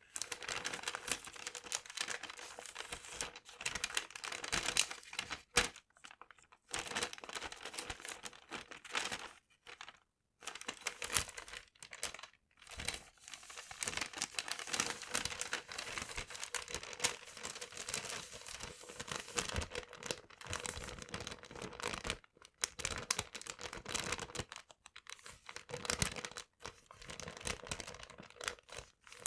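Paper being handled close to the microphone: crinkling and crumpling in a dense, continuous crackle, broken by several short pauses.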